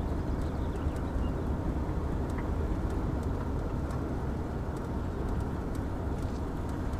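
Camper van driving slowly, with a steady low rumble of engine and road noise heard inside the cab.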